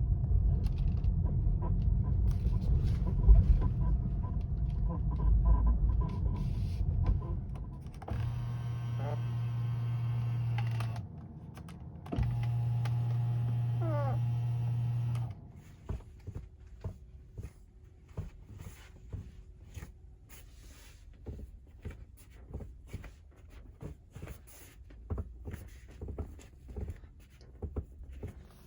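Inside a Tesla: low rumble of the car on the move, then a power window motor running twice, about three seconds each time, with the glass squeaking as it slides. After that come many small, quieter creaks and ticks, the squeaks and rattles of the car's interior.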